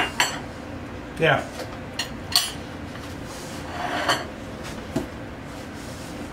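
Metal fork and knife clinking and scraping against a plate while a bite of chicken is cut, a handful of separate sharp clinks.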